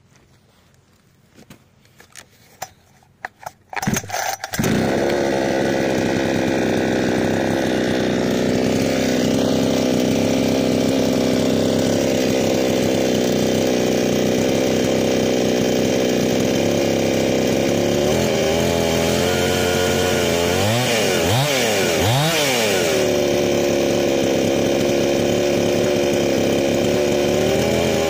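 52cc Chinese two-stroke chainsaw starting up about four seconds in, then idling steadily at roughly 3,900–4,300 rpm. Its pitch dips and rises a few times around twenty seconds in.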